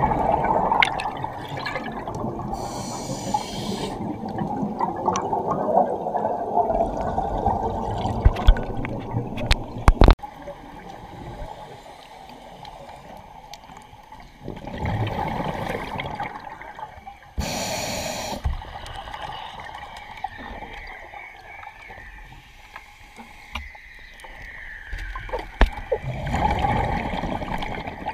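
A scuba diver breathing through a regulator underwater: short hissing inhales, each followed by a long rush of exhaled bubbles, in a slow cycle. A sharp knock comes about ten seconds in.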